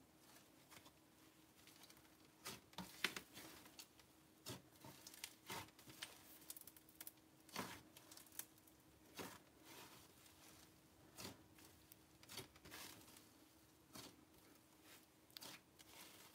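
Fluffy slime, made with instant fake snow, being kneaded and stretched by hand, giving off a faint sizzle of small, irregular crackles and pops.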